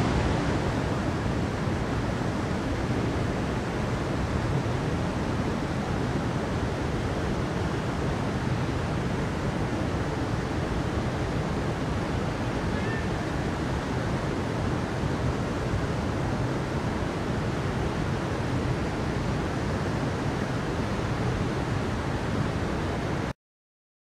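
Forest stream rushing over rocks: a steady, even rush of water that cuts off abruptly near the end.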